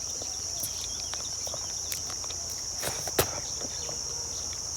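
Steady high-pitched insect chorus, with a few faint clicks and one sharper click a little past halfway.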